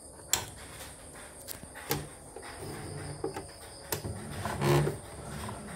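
Scattered sharp clicks and light knocks from handling the opened embroidery machine, with a brief low hum and a louder knock near the end.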